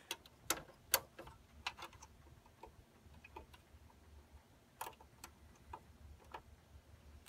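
Irregular light clicks and ticks from plastic cable connectors and metal parts being handled and pushed home on the fax interface card inside a Konica Minolta bizhub C360 copier.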